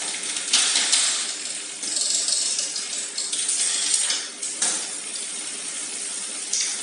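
Road bike drivetrain turned by hand at the crank: the chain runs over the front chainring and rear cassette with a metallic clinking hiss that comes in uneven surges.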